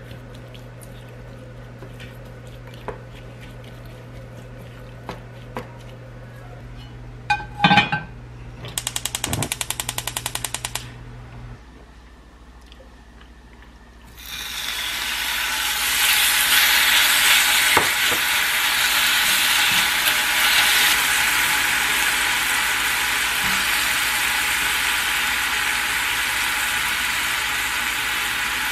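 Seasoned beef hits a hot, oiled cast-iron skillet about halfway through and sizzles loudly and steadily as it is stir-fried. Before that come light clinks of a spoon mixing the meat in a glass bowl, a sharp knock, and about two seconds of rapid even ticking.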